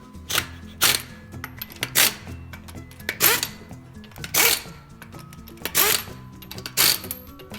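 Repeated sharp hammer blows on metal, about one every half second to a second, each ringing briefly, over background music.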